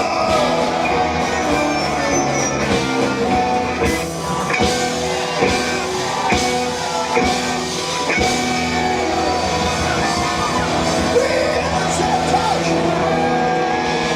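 Live rock band playing loud rock music: electric guitar over drums, with sharp drum hits about once a second.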